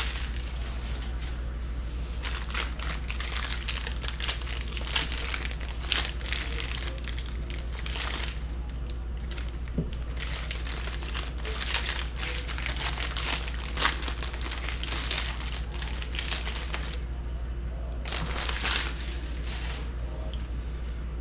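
Foil wrappers of Bowman Draft baseball card packs being torn open and crinkled by hand: a steady run of crackling rustles, with a brief lull near the end.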